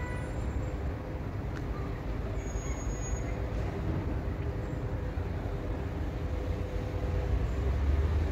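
RER E MI2N double-deck electric train approaching along the track: a low rumble that grows louder near the end as it nears.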